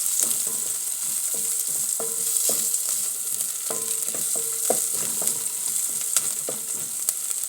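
Chopped onions sizzling in hot oil in a pot while being stirred, the utensil knocking and scraping against the pot every second or so. The onions are being sautéed toward golden brown.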